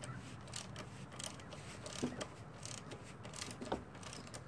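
Hand socket ratchet clicking in short irregular runs as it tightens the cylinder head nuts on a GY6 scooter engine.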